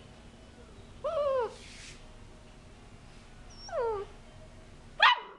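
Perdiguero (bird-dog) puppy whining: two high cries that fall in pitch, about a second in and near four seconds, then a short, sharper and louder yip near the end.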